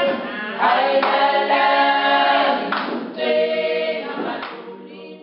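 A choir singing a cappella in long held chords, fading out near the end.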